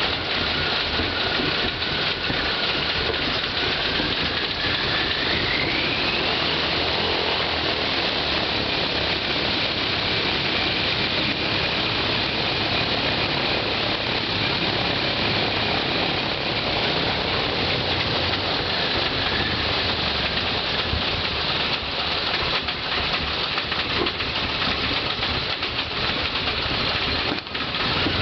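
Ilyushin Il-14T's right ASh-82T radial piston engine running on the ground with its propeller turning: a loud, steady drone. A whine in it rises in pitch about five seconds in, holds, and begins rising again at the end.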